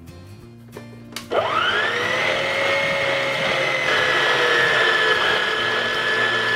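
A few light clicks, then about a second in an electric stand mixer switches on. Its motor whine rises quickly to speed and holds steady as the beater mixes flour into a yeast-dough batter.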